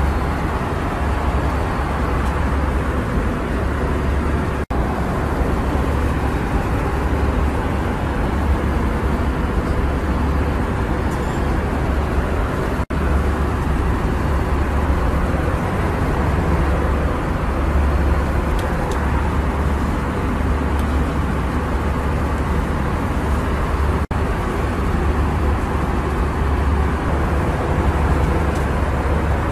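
Steady low rumble of cabin noise inside a moving passenger vehicle. It cuts out briefly three times.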